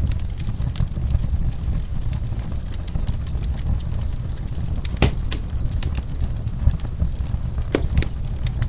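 Wood fire in a fireplace crackling, with a steady low rumble under frequent small pops and two louder pops, about five seconds in and near the end.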